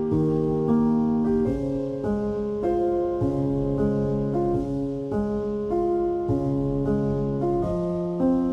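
Background piano music: sustained chords and notes that change about every half second to a second, at an even, gentle pace.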